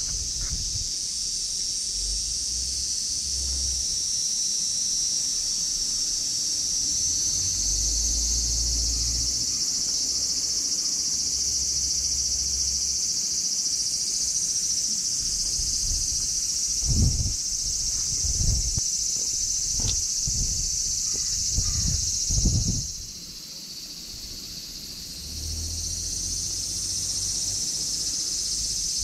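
A steady, high-pitched chorus of insects droning outdoors, stopping for about two seconds roughly three-quarters of the way through before starting again. Wind rumbles on the microphone underneath, with a few low thumps in the second half.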